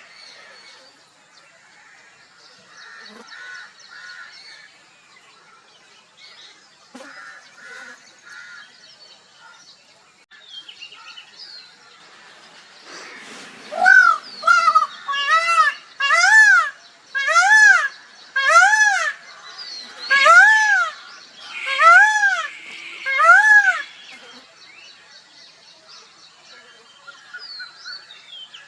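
Peafowl calling: a series of about ten short, loud, honking calls, roughly one a second, each rising and falling in pitch, in the second half. Before them there are only faint scattered bird chirps.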